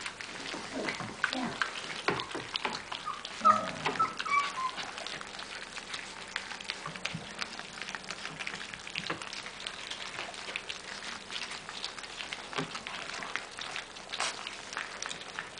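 A litter of German shepherd puppies eating soft food from a drain-pipe trough: a dense patter of small wet clicks from lapping and chewing, with a brief high, falling whine from one pup about three to four seconds in.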